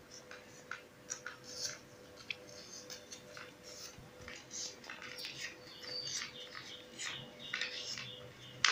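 Sheet of paper rustling and crackling in short, irregular crinkles as it is folded and creased by hand, with a sharper crackle near the end. A faint steady hum runs underneath.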